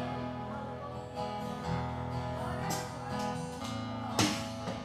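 Guitar being played loosely, notes ringing on, with two strummed chords standing out, one about halfway through and one near the end.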